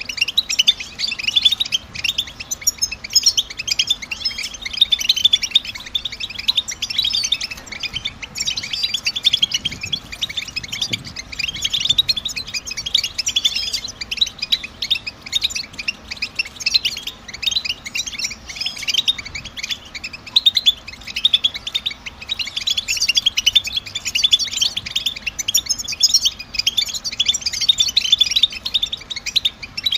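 European goldfinches giving rapid twittering calls, a dense and unbroken chatter of short, high chirps.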